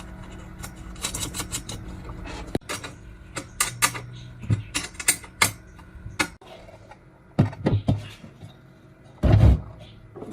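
Irregular sharp metal clicks and knocks of parts being handled, over a low hum that stops about two and a half seconds in; a louder knock near the end.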